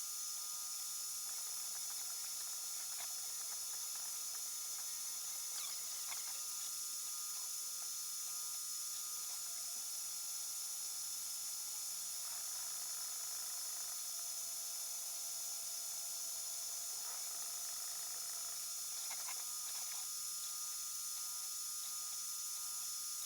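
3D printer stepper motors whining in short runs that shift in pitch as the print head moves, over a steady high-pitched hiss.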